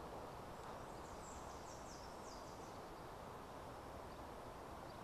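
Faint, steady outdoor background noise, with a short run of quick high chirps about a second in.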